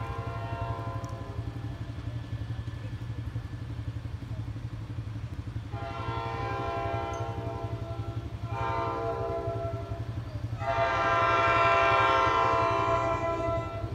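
NJ Transit ALP-46A electric locomotive's horn sounding as the train approaches: a faint blast first, then three longer blasts, each louder than the one before, the last the loudest. A steady low rumble runs underneath.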